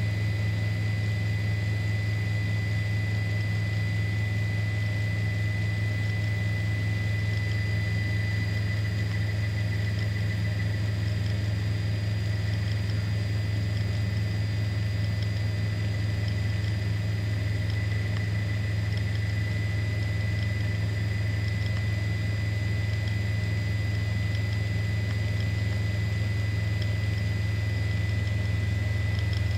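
Helicopter engine running at a steady drone, a low hum with a constant thin high-pitched whine above it.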